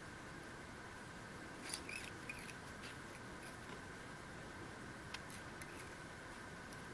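Faint steady room hiss with a few small clicks and scrapes, a cluster about two seconds in and a few more just after five seconds: fingers handling thread and foam strips on a hook in a fly-tying vise.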